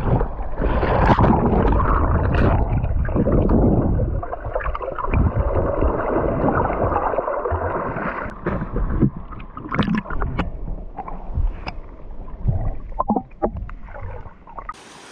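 Muffled rushing of wind and water, heavy for the first four seconds, then thinning out into scattered short knocks.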